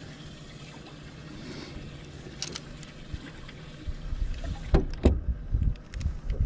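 Steady low hum aboard a bass boat. From about four seconds in it becomes a louder low rumble, like wind on the microphone, with a couple of knocks.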